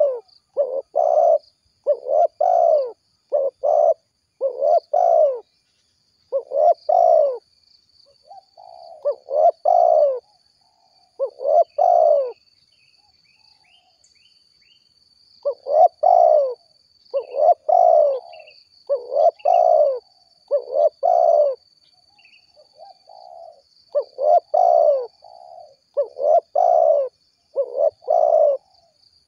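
Spotted dove (tekukur) cooing in repeated phrases of several low coos, with a pause of a few seconds near the middle.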